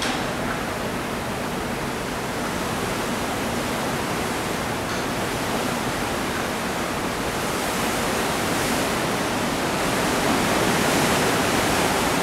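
Steady rushing noise of wind and sea on a cruise ship's open promenade deck, growing a little louder about two-thirds of the way through.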